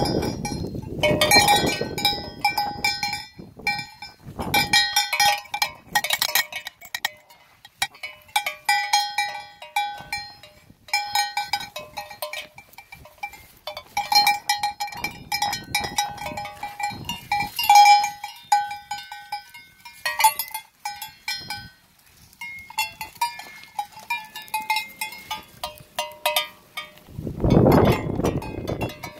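Metal sheep bell clanking irregularly as the sheep wearing it moves and grazes, with a brief low rumble near the end.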